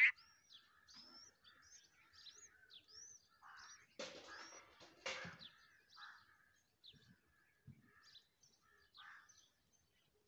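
Birds chirping at a bulbul nest: a string of short, upward-sweeping whistled chirps, opened by one sharp loud call. Two harsher, noisier bursts come about four and five seconds in.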